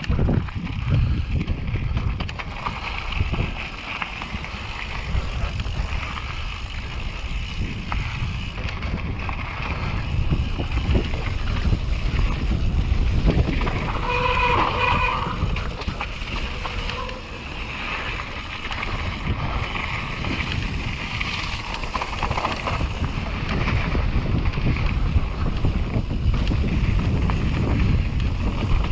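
YT Capra enduro mountain bike descending a gravel and dirt trail: wind buffeting the helmet-camera microphone over steady tyre rumble on loose gravel and the rattle and clatter of the bike over rough ground. A brief higher-pitched sound cuts through about halfway.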